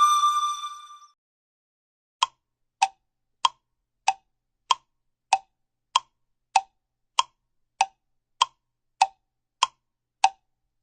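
Cartoon sound effect: a steady run of short, hollow pops, about three every two seconds, alternating slightly in pitch like a clock's tick-tock. Before them, the tail of an electronic tone fades out in the first second.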